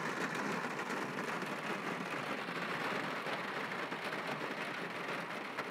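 Steady rain drumming on the roof and windows of a parked car, heard from inside the closed cabin.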